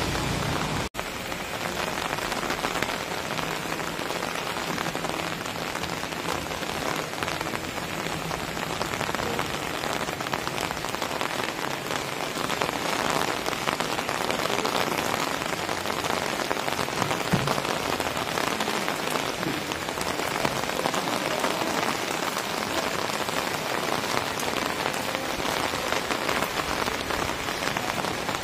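Light rain falling steadily on a wet paved street, an even hiss of drops. The sound cuts out for an instant about a second in.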